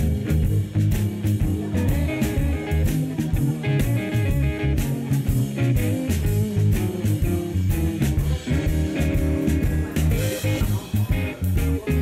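Background music: a guitar-led track over a steady drum beat.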